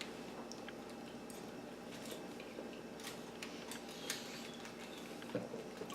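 Quiet room tone with a few faint, scattered clicks and ticks of small handling noises.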